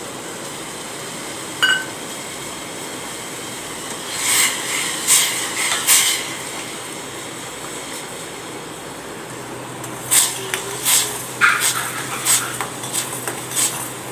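Metal ladle scraping and clinking against the sides of a steel pot as sugar syrup is stirred, in groups of strokes, over a steady background hiss. There is a single sharp clink early, a few strokes about four to six seconds in, and a quicker run of strokes from about ten seconds on.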